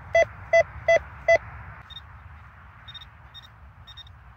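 A Golden Mask One metal detector beeps on a target, a mid-pitched tone repeating about three times a second for the first second and a half; the display reads 64, the solid 60s signal the detectorist decided to dig. Then a higher-pitched electronic beep comes in short bursts that grow closer together.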